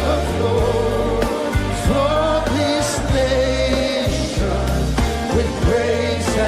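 Live gospel worship music: a band playing over a steady bass line, with singing and long held notes.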